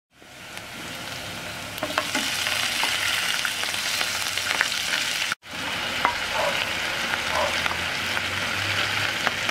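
Frog meat frying with a steady sizzle in a nonstick pan as it is stirred, with a few clicks of the utensil. The sizzle cuts out for an instant a little past halfway, then carries on.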